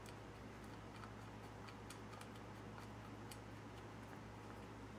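Faint, irregular small ticks, a few a second, from a hex key turning a bolt through a metal pipe clamp into a threaded insert in wood, over a low steady hum.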